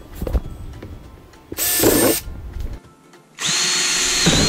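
Ryobi cordless drill running in two bursts, drilling holes through the plastic body of a ride-on toy: a short burst about a second and a half in and a longer one near the end, its whine dipping briefly partway through.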